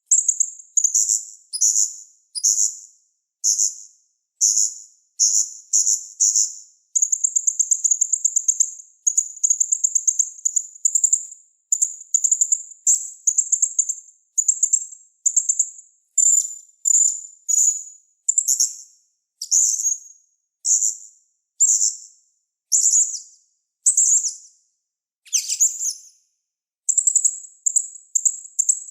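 Small songbird singing very high-pitched chirping phrases, roughly one a second with short gaps between. A rapid trill comes about seven seconds in, and a lower downward-sweeping note comes near the end.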